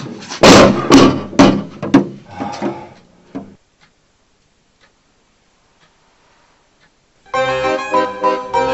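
A quick run of thuds and bangs at a wooden door, five or six loud ones in the first two seconds, then weaker knocks dying away by about three and a half seconds in. After a few seconds of near silence, piano music begins near the end.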